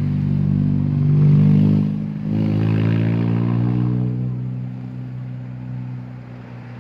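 A motor vehicle engine running close by and accelerating: its pitch rises, drops briefly about two seconds in, then rises again and eases off.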